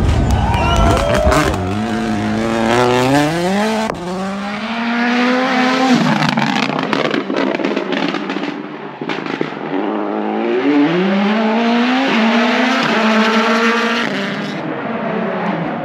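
Ford Puma Rally1 rally car's turbocharged 1.6-litre four-cylinder engine accelerating hard through the gears, the pitch climbing and dropping back at each upshift, with quick shifts near the end.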